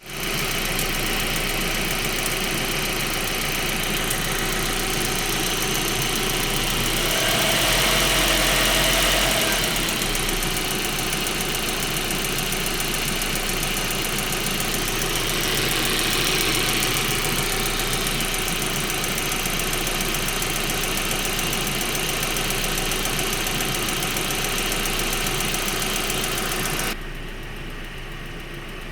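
A VW/Audi 1.8T turbocharged four-cylinder engine running with a ticking noise. It grows louder for a couple of seconds about eight seconds in, and turns suddenly quieter and duller near the end.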